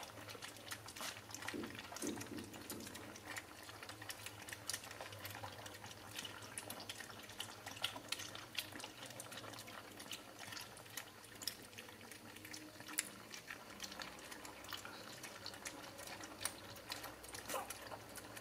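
Five puppies lapping milk from a shallow tray: a faint, irregular patter of many small wet licks and slurps overlapping one another.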